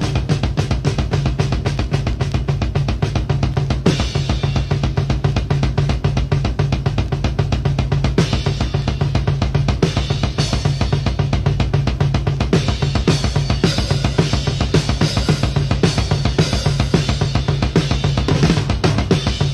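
Rock drum kit played fast and busy, with bass drum, snare and cymbals, over a steady low drone, in an early-1970s blues-rock album recording.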